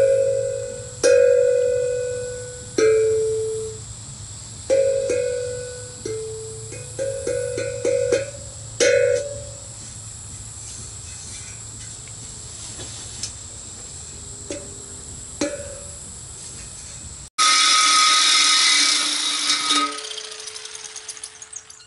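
A steel tongue drum made from a propane tank has its tongues struck by hand one at a time, each note ringing and fading, with a quick run of taps about eight seconds in. About seventeen seconds in, a small high-speed power tool grinds on the metal with a whine for about three seconds, and then a single note rings out near the end.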